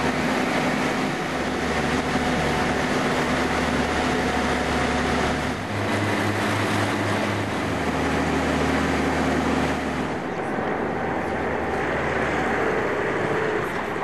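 Engines of amphibious cars running steadily as they motor through the water, with the rush of the wake and wind over it. The engine note changes about five and a half seconds in and again about ten seconds in as different vehicles are heard.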